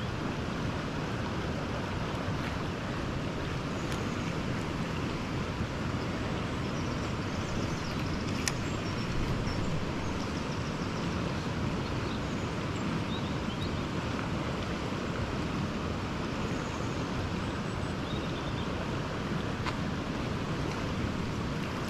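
Steady rushing of a fast river in spate, running high and turbid right past the bank.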